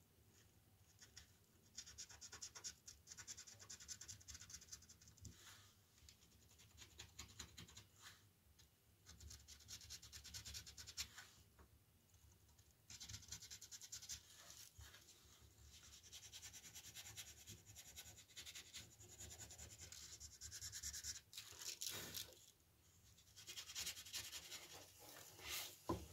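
Faint hand sanding of carved wood, with sandpaper rubbing in quick back-and-forth strokes along the grooves. It comes in several stretches with short pauses between them.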